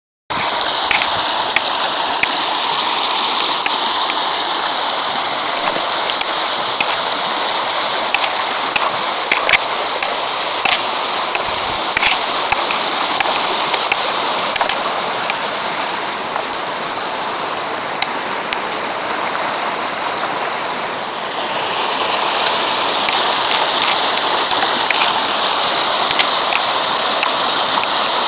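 Small rocky mountain creek rushing and splashing over stones in a steady rush, with scattered sharp clicks. The rush grows louder about three-quarters of the way through.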